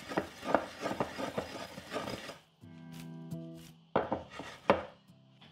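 Blanched potato halves tossed with seasoning in a glass mixing bowl by hand: a busy run of rubbing, scraping and soft knocks against the glass, a pause filled by light background music, then a second short toss with a couple of sharper knocks.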